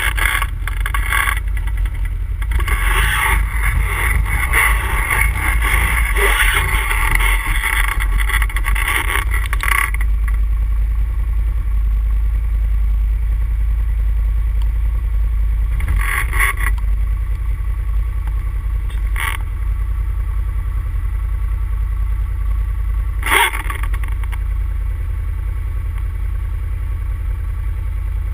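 ATV engine running steadily under way. A loud rushing noise sits over it for about the first ten seconds, then eases, and a few sharp knocks come in the second half.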